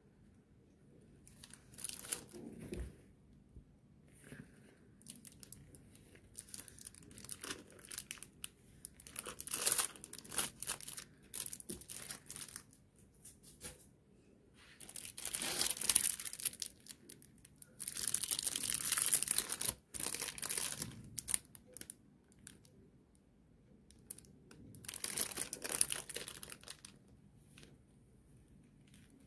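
Thin clear plastic sleeves crinkling and tearing as makeup brushes are unwrapped by gloved hands, in several separate bursts with pauses between; the longest and loudest bursts come around the middle.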